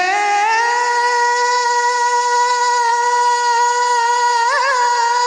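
A woman singing one long held note: the pitch slides up over the first second, then holds steady, and near the end she adds a quick warbling ornament.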